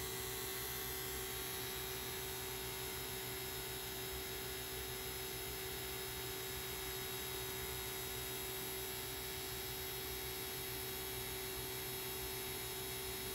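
Navac Break Free 4 CFM battery-powered vacuum pump running steadily, a constant hum with one strong tone, as it pulls a deep vacuum down through the 500s of microns on a refrigerant line.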